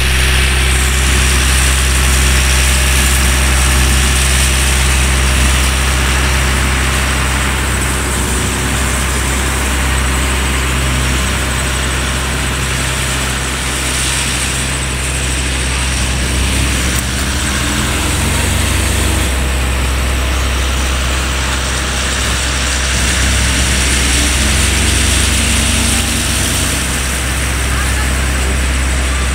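Fairground ambience: a steady, loud low engine hum, with people's voices mixed in.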